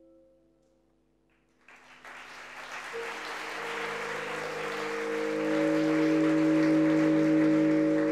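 The music's last held note fades away, and after a brief hush an audience bursts into applause about a second and a half in, the clapping growing louder. From about three seconds in, a steady ringing tone holds under the applause.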